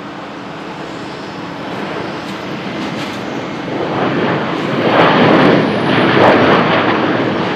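Airbus A320-200 airliner's jet engines during its landing rollout: a rushing jet noise that swells over several seconds and is loudest about five to six and a half seconds in.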